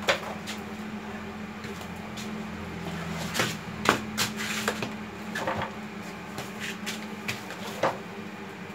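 Scattered knocks and clunks as heavy metal cut-off saws are moved about and set down on a floor, with footsteps between them. The loudest knocks come just at the start and about four seconds in, over a steady low hum.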